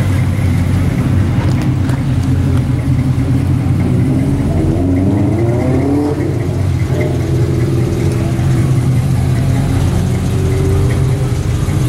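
Car engine idling with a steady low rumble, its pitch rising in a couple of brief glides about five to six seconds in.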